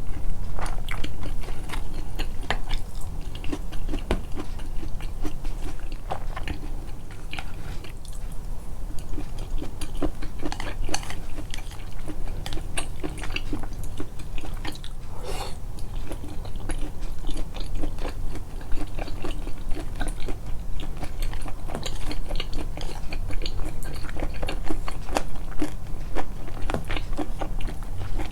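Close-miked, amplified chewing and biting: a person eating, with a steady run of small wet clicks and crunches in the mouth.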